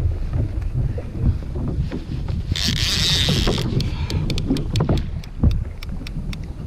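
Wind buffeting the microphone over water slapping a kayak's hull, with a short hiss about two and a half seconds in, followed by a run of sharp, irregular ticks.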